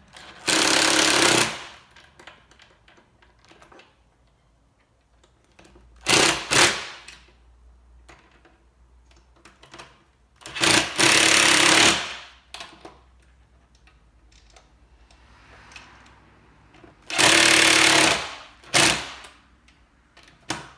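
Makita cordless impact driver hammering bolts down in four bursts of about a second each, with a shorter burst near the end, snugging up a door latch assembly on its mounting plate.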